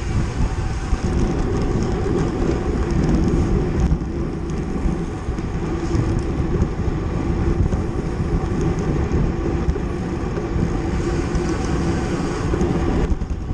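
Wind buffeting the microphone of a camera moving at racing speed in a bicycle criterium, a steady rush with a constant hum underneath.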